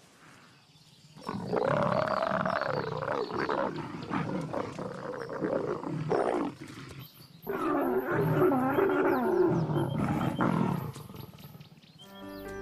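Mating leopards snarling and growling in two long, rough bouts, the second starting about halfway through.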